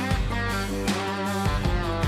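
Background music: guitar-led instrumental with strummed chords and a steady beat.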